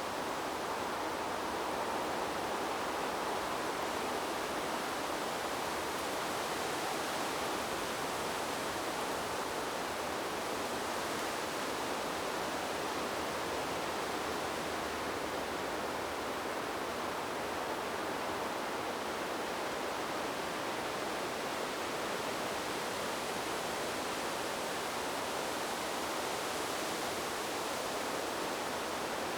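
Wind blowing through trees, a steady rushing hiss of leaves that swells and eases gently.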